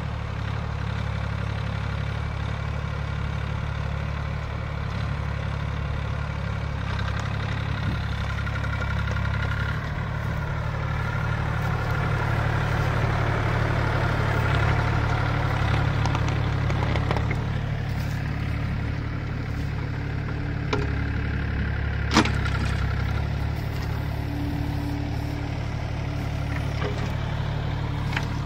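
Everun ERE18 mini excavator's diesel engine running steadily at idle, a low even hum, with one sharp knock about two-thirds of the way through.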